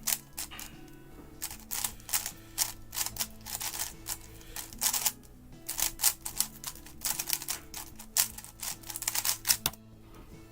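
GAN 11 M magnetic 3x3 speedcube turned at speed in a timed solve: rapid plastic clacking of the layers in quick flurries with brief pauses, stopping shortly before the end.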